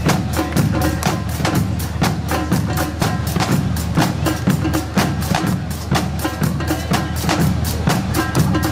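Music with a quick, steady percussion beat under a melody.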